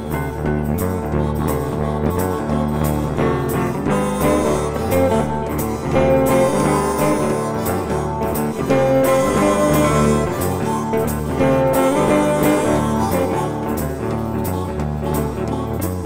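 Background music led by guitar with a blues-rock feel.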